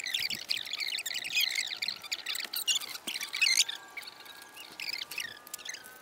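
Many birds singing at once: a dense chorus of overlapping chirps and whistles, some sliding in pitch.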